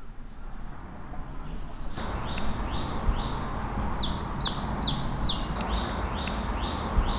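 A songbird singing rapid runs of short, high notes that slide downward, about four a second, over a steady low background noise; the sound fades in at the start.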